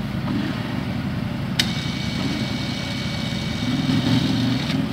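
Side-by-side UTV engine running while stuck in mud. About a second and a half in, an electric winch clicks on and whines steadily as it pulls, then stops near the end. The engine gets louder around four seconds in.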